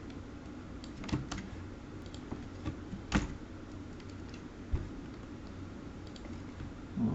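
Computer keyboard keystrokes, a handful of separate taps spread out with gaps between them, over a steady low background hum.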